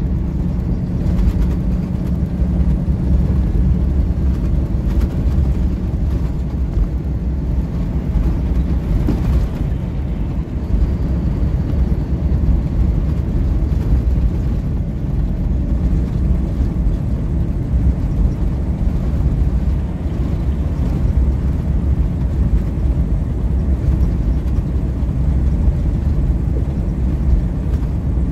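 Steady low rumble of engine and tyres heard inside a vehicle's cab at freeway speed, with no marked changes.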